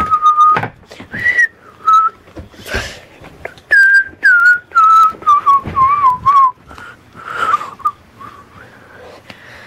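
A person whistling a tune in short held notes, with a run of notes stepping down in pitch about four seconds in. Brief rustling of bedding and handling noise in between.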